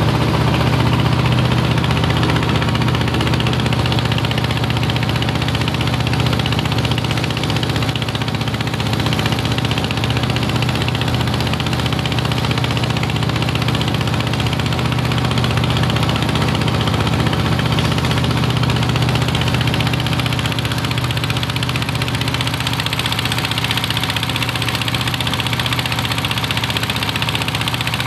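Boat engine running steadily: a loud, even low drone that does not change.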